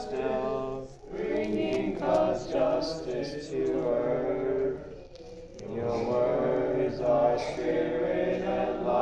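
Singing voices carrying a slow melody in long held phrases, with short breaks about a second in and again around five seconds in.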